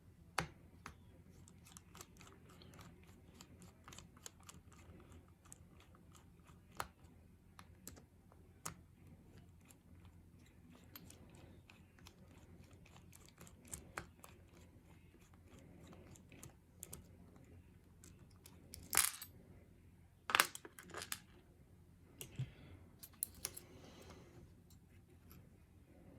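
Scattered small clicks and taps from a pin-tumbler lock core being taken apart by hand, with a few louder knocks and rustles about three-quarters of the way through.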